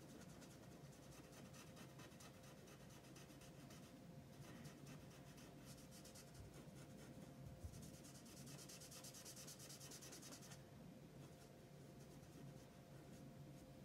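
Faint scratching of a Spectrum Noir alcohol marker's nib stroked back and forth on paper while colouring. The strokes grow louder and quicker from about eight seconds in, for a couple of seconds.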